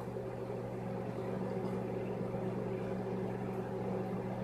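Microwave oven running with a steady low electrical hum.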